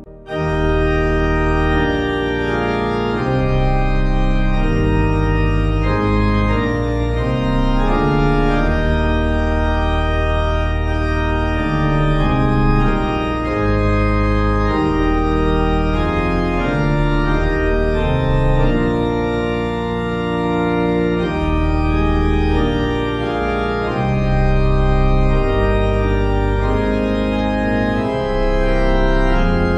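Organ playing a slow hymn accompaniment in full, sustained chords over a deep bass line, with no singing. The music starts after a brief drop in level at the very beginning.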